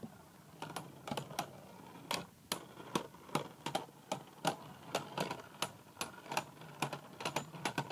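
Two Beyblade Burst spinning tops grinding against each other in a plastic stadium: a run of sharp plastic clicks, about three a second. This is the left-spinning Drain Fafnir in opposite-spin contact with the other top, absorbing its spin.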